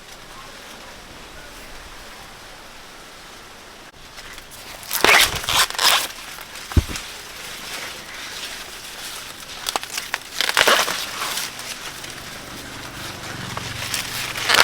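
Dry corn leaves and stalks crackling and rustling in bursts as they are handled and snapped, with one dull thud about seven seconds in.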